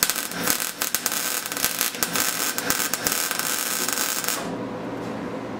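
Wire-feed welder arc crackling steadily while tack-welding a steel bracket, cutting off about four and a half seconds in.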